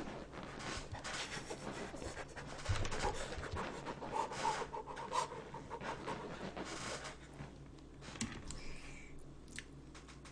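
Irregular rustling and scraping noise for about seven seconds, then quieter, with a few light clicks near the end.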